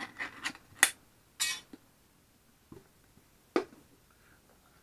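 Scattered sharp clicks and taps with one brief scrape: hands working pressurized tennis balls into a dirt bike tire. The loudest click comes about a second in, and another near three and a half seconds.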